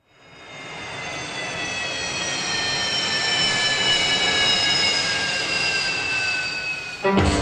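Jet airliner engine sound: a rushing noise with a high whine that falls slowly in pitch, fading in at the start. Music starts near the end.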